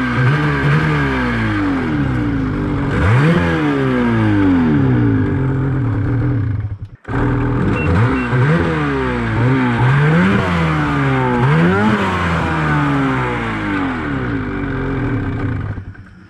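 Turbocharged Ski-Doo 850 two-stroke sled engine revved up and down again and again, its revs rising and falling freely because the drive chain has snapped and the engine no longer drives the track. The sound breaks off sharply for a moment about seven seconds in, then the revving carries on.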